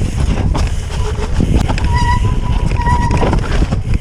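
Wind buffeting a body-mounted camera's microphone over the rumble and rattle of a mountain bike rolling down a rocky trail. About halfway through, a steady high squeal sounds for roughly a second, typical of the bike's disc brakes under hard braking on the steep descent.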